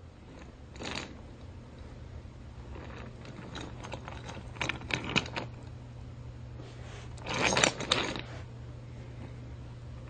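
Irregular clicks and clatter of small hard objects, with a denser rattling cluster about seven seconds in, over a steady low hum.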